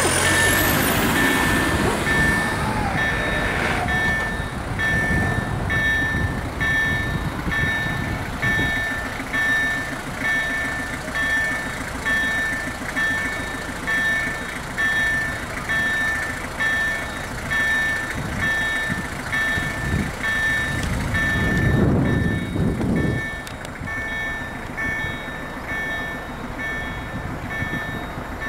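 Electronic warning beeper of an automatic railway level crossing (EDE-1 acoustic signal generators) sounding a steady run of evenly spaced beeps on one high pitch, the crossing's warning that a train is approaching; cars pass over the crossing near the start and about two-thirds of the way in, and the beeping grows fainter near the end.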